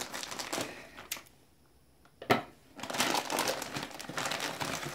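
Plastic courier mailer bag crinkling as it is handled. There is a quiet pause and one sharp click about two seconds in, then the crinkling resumes.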